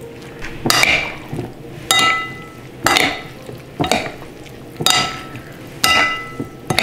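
A metal spoon stirring grated beetroot salad in a ceramic bowl, striking the side of the bowl about once a second. Each strike gives a sharp clink that rings briefly.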